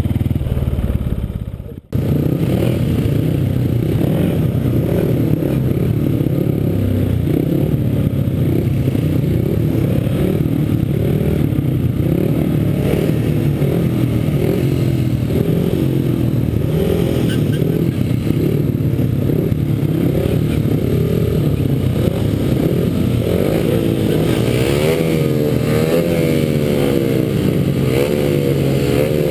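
Speedway motorcycles' single-cylinder methanol engines running close to the microphone, with a brief dropout about two seconds in. From about 24 s in, the throttle is blipped again and again, giving quick rising and falling revs, as at the start gate before the tapes go up.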